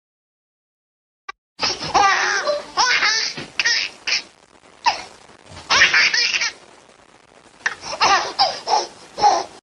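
Laughter sound effect: a high-pitched laugh in several bouts with short pauses between them, starting about a second and a half in.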